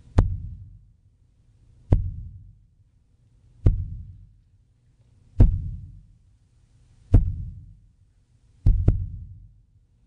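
Slow, deep thumps from the performance's sound score, one about every second and three-quarters, each with a sharp attack and a booming decay. Near the end two come close together, like a heartbeat.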